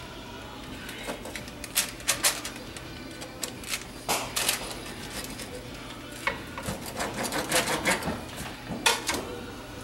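A knife cutting through the flaky baked crust of a pizza roll ring, with irregular crunches and clicks of metal against the pan or plate.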